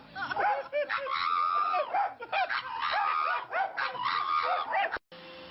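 An animal's repeated high-pitched calls, each bending up and down in pitch, one of them held longer. They stop abruptly about five seconds in, and a steady hum follows.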